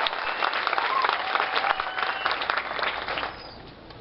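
Audience applauding, with a few cheering voices, then dying away a little over three seconds in.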